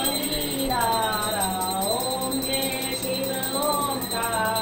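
An aarti hymn sung as a slow melody of held notes, with a small prayer bell ringing rapidly throughout.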